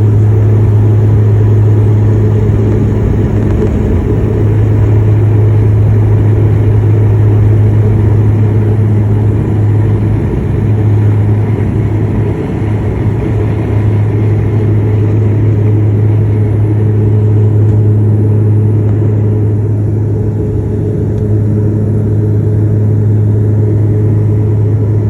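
Propeller airliner's engines droning steadily at takeoff power through the climb-out, a loud, even low hum over a rumble, as heard from inside the cabin.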